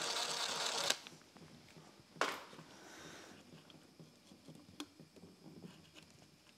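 Cordless ratchet running as it spins a bolt out of a 10-bolt rear differential cover, cutting off about a second in. A short sharp clatter comes about two seconds in, then faint handling sounds as the cover is worked loose.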